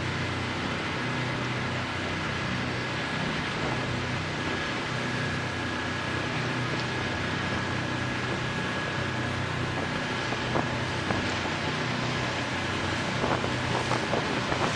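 Austal 40 m high-speed catamaran ferry running at about 28 knots: a steady low diesel engine drone under a hiss of rushing water and wind on the microphone. A few faint ticks come near the end.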